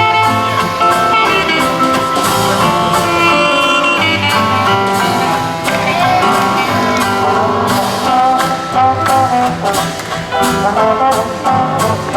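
Jazz band playing an instrumental chorus of a swing-era ballad, with guitar and brass among the instruments.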